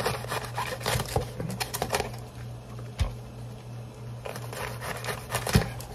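Knife chopping the tops off artichokes: irregular crisp clicks and knocks, thickest in the first two seconds, a single sharper knock about three seconds in, and a few more near the end.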